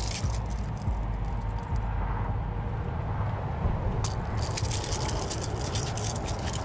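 Clicks and crackles of a small grouper and its hard plastic lure being handled by hand: a brief crackle at the start, then a dense run of clicking from about four seconds in. A steady low rumble runs underneath.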